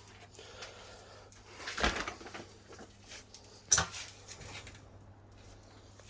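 A few handling knocks: a short rattling clatter about two seconds in, then a single sharper knock just under four seconds in, over a faint steady hum.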